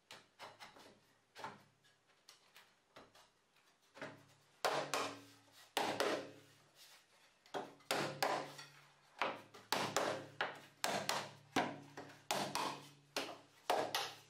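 Loose OSB panels being shifted and knocked into place on top of an OSB compartment cabinet. Soft wooden knocks and scraping come first. From about a third of the way in there is a run of sharper wooden knocks, one or two a second, each with a short hollow ring from the box.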